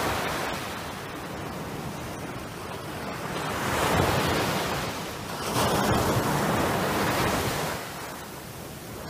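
Small surf breaking and washing up a sandy beach, the wash swelling and easing in waves, loudest about four seconds in and again from about six to seven and a half seconds.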